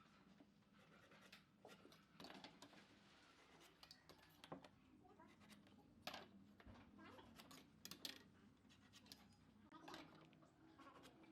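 Near silence with faint, scattered clicks and light scraping or tapping sounds.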